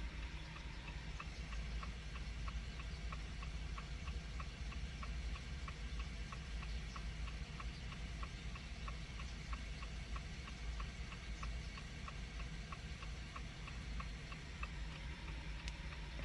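Steady, evenly spaced ticking, several ticks a second, over a low steady hum, heard during a timed wait in a Jeep Compass proximity-key programming routine.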